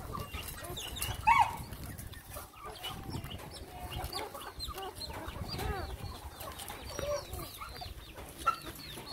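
A litter of young puppies squeaking and whining while they suckle, many short high-pitched squeaks overlapping, with one louder squeal about a second in.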